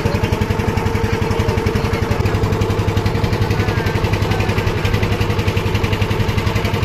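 The engine of the boat carrying the camera runs steadily at an even speed, with a rapid regular thudding pulse.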